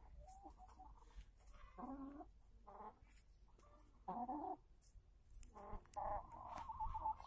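Hens clucking: a string of short calls, with a longer, busier run of clucking over the last second or so.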